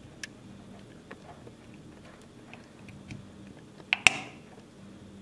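Small knife blade prying at the seam of an IKEA TRETAKT smart plug's plastic housing: faint scraping ticks, then two sharp clicks about four seconds in as a snap-fit clip gives way.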